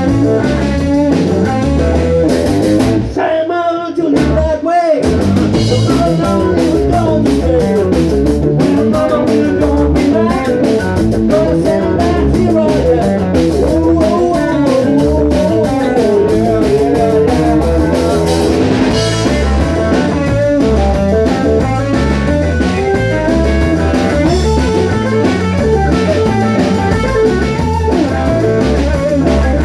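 Rock'n'roll band playing live in an instrumental stretch: electric guitar leads with bending notes over a drum kit and bass. The drums and bass break off briefly about three seconds in, then carry on.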